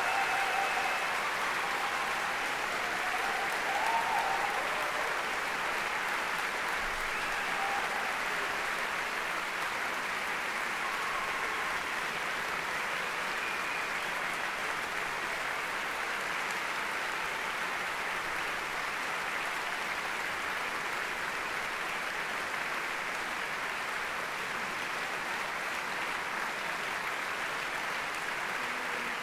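A large concert audience applauding at the close of an orchestral performance: steady, dense clapping that holds at an even level throughout.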